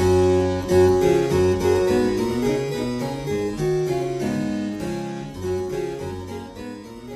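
Background music on a harpsichord-like keyboard, plucked notes in a running melody that gradually fades out.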